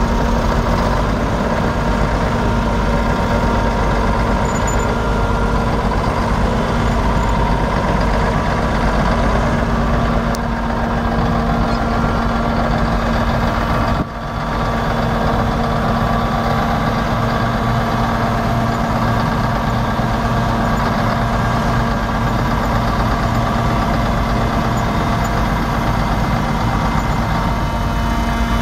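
Mack diesel engine of a 1981 Mack R686ST semi truck running steadily at low revs, with a brief break about halfway through.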